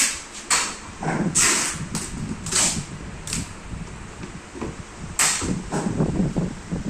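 Irregular knocks and clatter with short scraping rasps: parts being handled during ceiling fan assembly.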